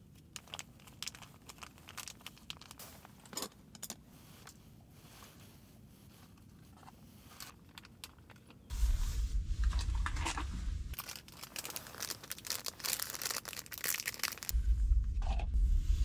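Foil food sachets crinkling and tearing as they are opened and squeezed out, at first in scattered rustles and clicks, then densely for several seconds from about halfway. Bursts of low rumble come in twice on the microphone.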